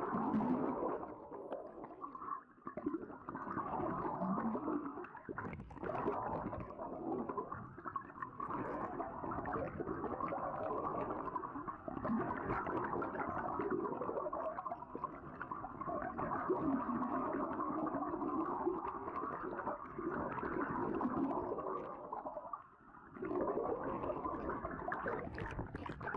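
Underwater sound picked up by a submerged camera: a constant rush and gurgle of water with low wavering tones and scattered clicks, ending in splashing as the camera breaks the surface.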